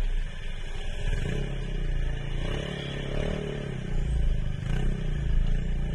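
Motorcycle engine running as the bike rolls slowly, its low note rising and falling slightly with the throttle.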